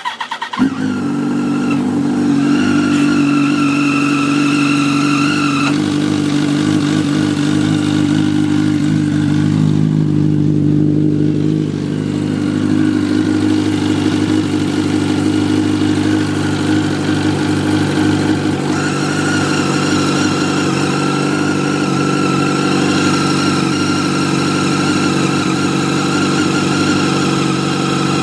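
2004 Yamaha R1's inline-four engine starting and then running steadily, with a high-pitched squealing whine that cuts in and out. The whine comes in about two seconds in, drops away around six seconds, and returns about two-thirds of the way through. The owner suspects the cam chain or the clutch, and fears a spun bearing.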